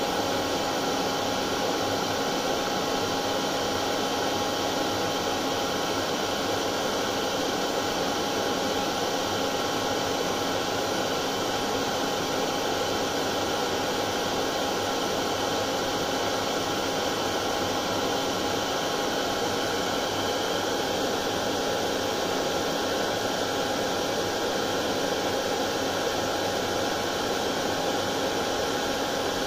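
Electric hair dryer running steadily, a constant rushing whir of blown air with a steady motor hum.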